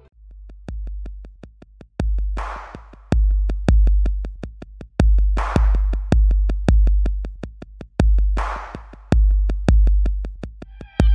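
Electronic background music with a drum-machine beat that starts right at the opening. It has a heavy kick drum, fast hi-hat ticks and a snare hit about every three seconds.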